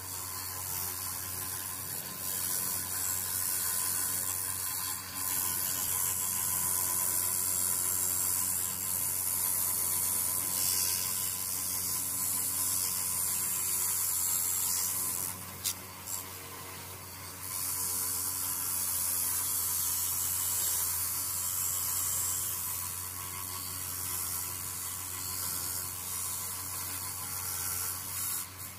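Motor-driven wire wheel running with a steady hum, its bristles hissing against small metal rifle parts held to it to strip rust and polish them. The hiss lifts off briefly about five seconds in and again for a couple of seconds just past the middle.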